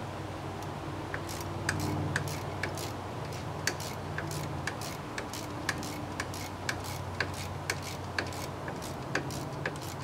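Ratchet wrench clicking in an even rhythm, about two clicks a second, as a hub assembly mounting bolt is run in.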